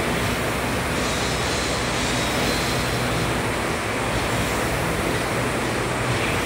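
Concept2 rowing machine's air-resistance flywheel whooshing steadily under hard rowing, the rush swelling and fading with each stroke.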